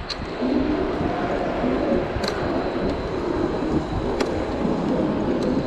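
Riding noise from a Zero 10x electric scooter on city streets: a steady low rumble of wind and tyres on the road, with a few sharp clicks or rattles.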